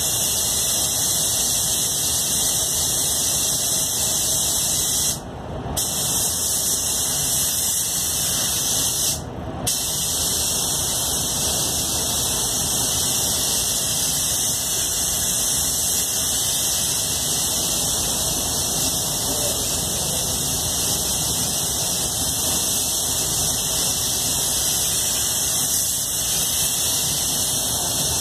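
Iwata Supernova gravity-feed spray gun hissing steadily as compressed air atomises clear coat. The hiss stops briefly twice, about five and nine seconds in, when the trigger is let off.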